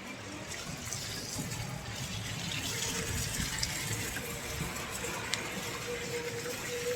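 Water pouring and gushing steadily, growing louder over the first couple of seconds; a faint steady tone joins about three seconds in.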